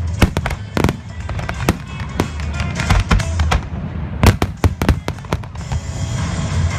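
Fireworks display going off: a rapid series of sharp bangs and crackles, thickest about four seconds in, over the music played with the show.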